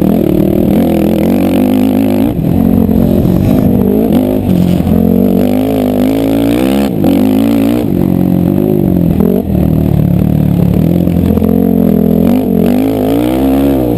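Racing ATV engines revving hard, their pitch rising and falling again and again with each throttle change, more than one engine running at once.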